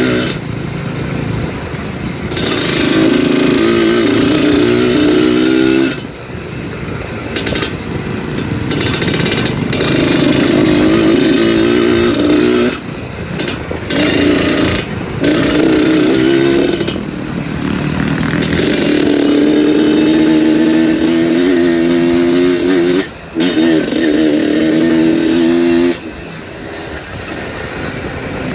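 Two-stroke trail motorcycle engine riding under throttle, the pitch held for stretches of several seconds. The throttle is shut off several times, briefly dropping the engine sound, before it pulls again.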